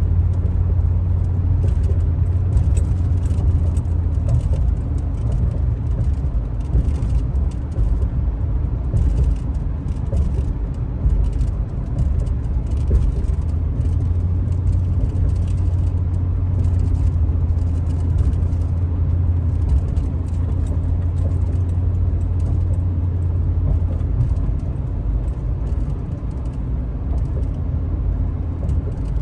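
A vehicle being driven: steady low engine and road rumble, with faint scattered rattles.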